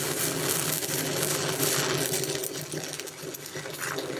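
Stick-welding arc burning an Eagle 823 XS low-hydrogen electrode, a continuous dense crackle and sizzle over a steady low hum. It gets quieter in the second half.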